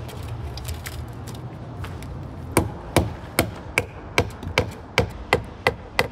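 Claw hammer striking the metal mounting bracket of a recessed can-light housing, fastening it to a wooden rafter. The sharp, evenly paced blows start about two and a half seconds in, around ten of them at about two and a half a second, after a few faint clicks of the housing being set in place.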